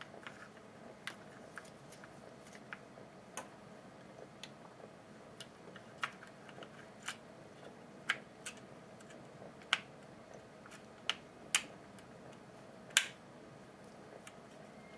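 Irregular light clicks and taps of small plastic and metal parts being handled and snapped into place on a Stihl HS80 hedge trimmer, as the throttle cable and handle parts are refitted. About a dozen sharp clicks are spread through, the loudest two or three coming in the last few seconds.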